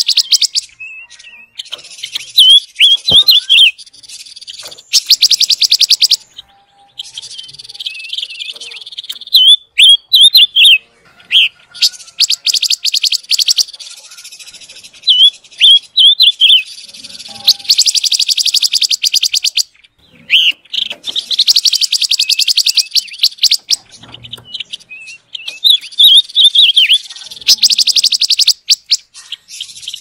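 Silver-eared mesia singing loudly: bursts of rapid trilling notes lasting one to two seconds, alternating with runs of short, sliding chirps.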